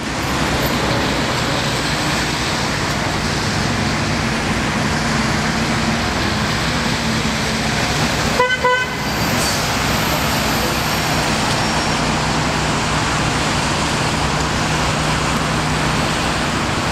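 Steady road traffic noise from passing cars. About halfway through comes a short car horn toot.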